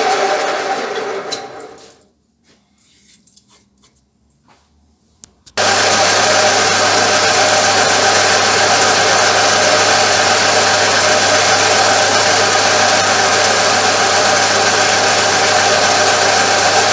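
Benchtop metal lathe running with a steady hum and hiss, fading away over the first two seconds into near silence with a few faint clicks. About five and a half seconds in, the running lathe cuts back in abruptly and runs steadily, with an abrasive strip held against the spinning part to polish it.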